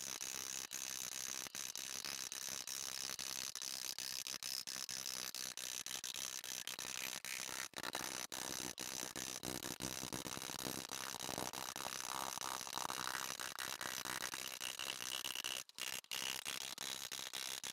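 Hammer striking a thin fine-silver cup on a steel stake, sped up many times, so the blows run together into a fast, high-pitched stream of clicks. The sound drops out briefly near the end.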